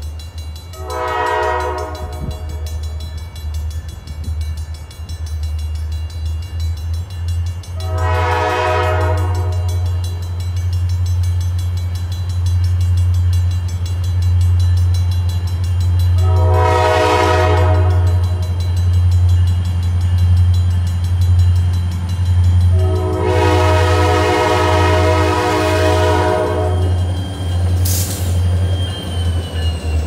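Diesel locomotive's multi-chime air horn blowing four blasts for a grade crossing, the last the longest, over a steady low rumble. The locomotive reaches the crossing near the end.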